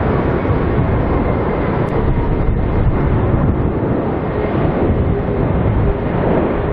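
Twin-engine jet airliner landing: its engines make a loud, steady noise with a deep rumble and a faint whine.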